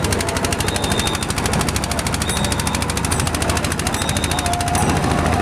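Fast, even knocking of a small boat engine, about ten beats a second, with faint voices behind.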